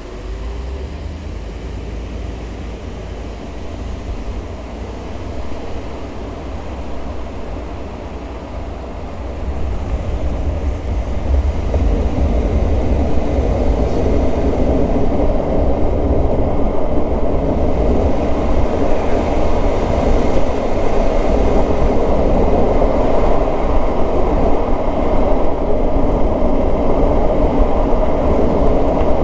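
1986 Mercedes-Benz 560 SL on the move: a steady, deep rumble of road and engine noise that grows louder about ten seconds in and then holds.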